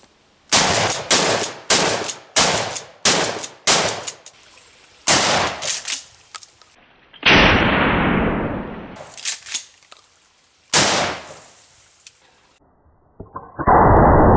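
Shotgun firing a rapid string of shots, about a dozen in the first six seconds, each a sharp crack with a decaying echo, then a few more spaced shots. Near the end a different loud, steady, muffled rushing sound begins and runs on.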